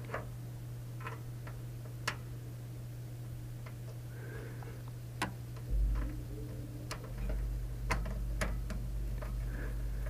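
Scattered small metallic clicks and ticks at irregular intervals as screws are started into a case fan's mounting holes and touch the fan frame and case, over a steady low hum, with a low handling rumble from about six seconds in.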